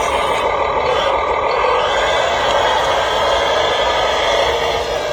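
Remote-control excavator running with a steady engine-like drone.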